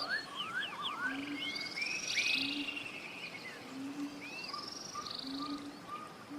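Forest birds singing together: overlapping whistled slurs, chirps and fast trills, with a low short call repeating about every second and a half underneath.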